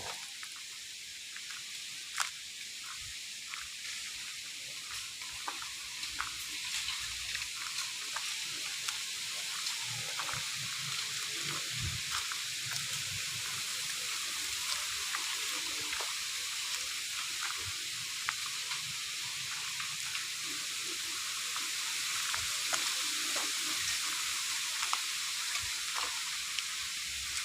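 Strong wind rustling through bamboo leaves as a steady hiss, with scattered light clicks and some low rumbling from gusts around the middle.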